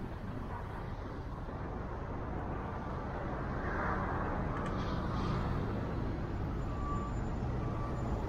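Car driving along a city street: steady road and tyre noise with a low engine hum, growing a little louder a few seconds in.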